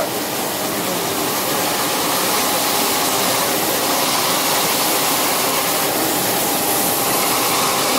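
STU SDA-400 brush-sanding machine running, its spinning abrasive brush drum giving a steady rushing hiss as a thin fretwork panel is held against it.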